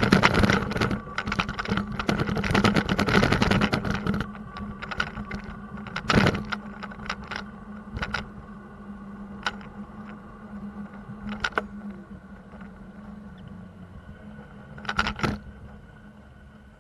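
Bicycle rattling and clattering over rough pavement, with a steady hum underneath. The clatter is dense for about four seconds, then thins to scattered knocks, with short bursts about six and fifteen seconds in.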